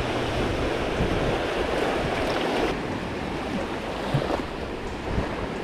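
Small surf waves breaking and washing up the beach, mixed with wind on the microphone.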